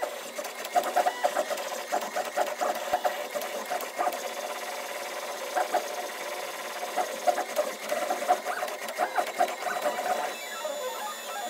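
MakerBot Replicator 5th Generation 3D printer's stepper motors whirring in short, uneven runs of pitched tones as the extruder moves across the build plate, with light clicking throughout.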